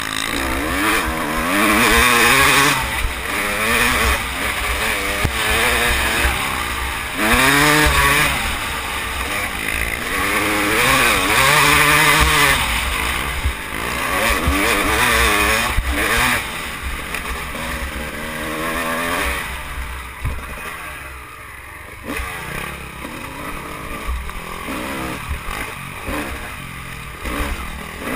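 Off-road race engine under hard throttle, its pitch repeatedly climbing and dropping as it revs up through the gears, with a rush of wind over the microphone. It eases off for a couple of seconds about twenty seconds in, then runs rougher at lower revs.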